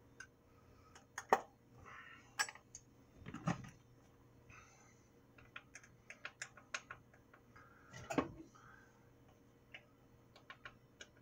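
Light clicks and taps of spice containers and a measuring spoon being handled, with a few louder knocks and runs of quick ticks in the middle and near the end.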